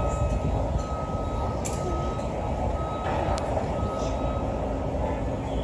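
Reversing alarm of a construction vehicle beeping, about one long beep a second, over a steady low outdoor rumble.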